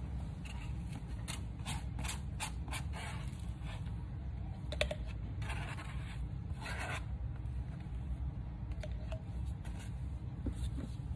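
Plastic handling noise as lotion is transferred from a plastic tub into a plastic piping bag: a quick run of crinkles and scrapes, then longer rustling around the middle. A steady low hum runs underneath.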